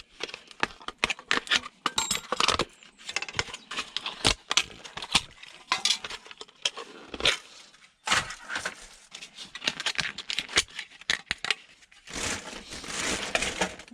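Small metal and plastic e-waste parts and hand tools clattering, clinking and scraping as they are handled at a workbench, with many short knocks and clicks. A longer rasping scrape near the end.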